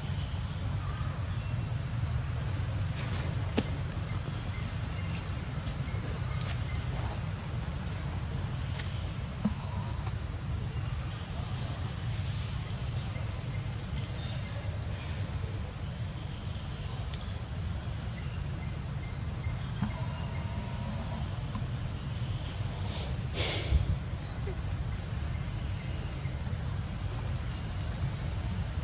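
A steady, high-pitched insect drone over a low, even rumble, with one brief sharp sound about three-quarters of the way through.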